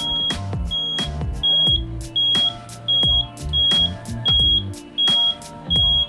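Home-made motorcycle turn-signal buzzer beeping in step with the flashing indicators: about nine short, high-pitched beeps on one steady tone, roughly three every two seconds, sounding while the turn signal is switched on.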